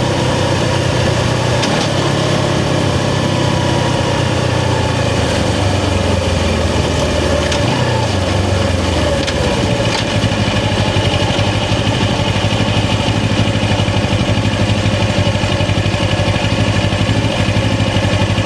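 Suzuki GS500 parallel-twin engine and exhaust running, heard from the rider's seat. The revs shift up and down in the first half with a glide around eight seconds in, then settle to a steady, evenly pulsing note from about halfway.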